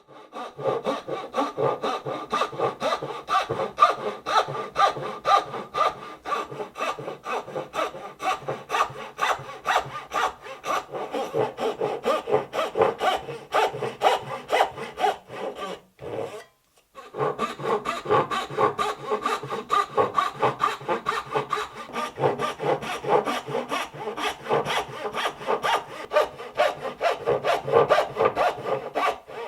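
Hand saw cutting wood in quick, even back-and-forth strokes, with a short pause about halfway through.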